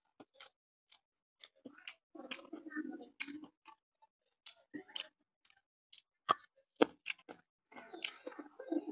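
Close-miked eating sounds: a person chewing a mouthful of rice and curry with wet smacking, broken by a few sharp crisp bites of a raw green chili, the loudest two a little over six seconds in.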